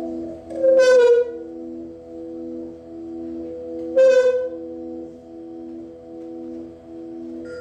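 Experimental drone music: layered low sustained tones pulsing in an even rhythm, broken twice by a loud, bright, horn-like tone about three seconds apart.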